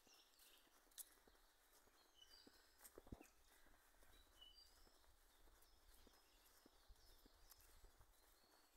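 Faint woodland birdsong: short high chirps and whistles from small birds, over soft footsteps on a leaf-covered dirt path, with a couple of light knocks about one and three seconds in.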